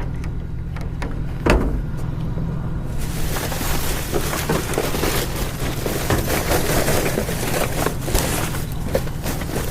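Trash and junk being rummaged and shifted in a dumpster, with a single thump about one and a half seconds in and a dense rustling from about three seconds on, over a steady low hum like an idling vehicle engine.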